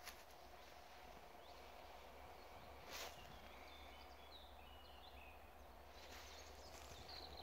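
Near silence: faint outdoor ambience with a few faint, short bird chirps and a brief rustle about three seconds in.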